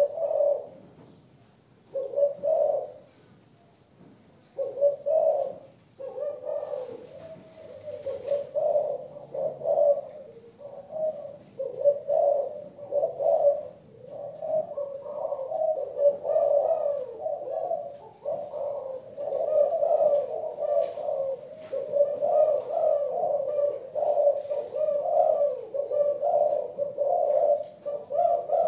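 Young hen spotted dove of the Malaysian strain cooing in low, short coos. A few separate calls come at first, then from about six seconds in a near-unbroken run of rapid coos.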